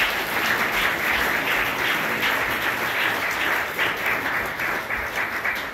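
Audience applauding: a dense, steady clatter of many hands clapping, thinning slightly near the end.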